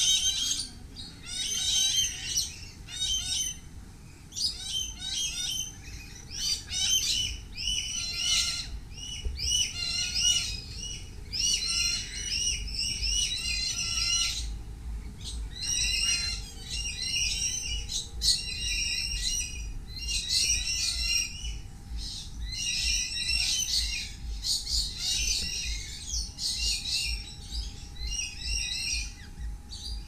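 Several birds calling almost without pause: clusters of rapid, high chirping notes, one after another with short gaps, mixed with some harsher squawks.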